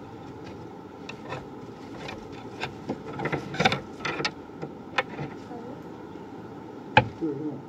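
Handling noise of cloth rustling against a phone microphone, with scattered soft clicks and a sharp knock about seven seconds in, over a steady low hum.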